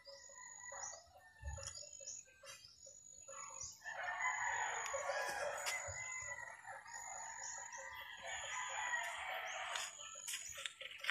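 A rooster crowing, drawn out over several seconds in the middle, with small birds giving short, high chirps over and over.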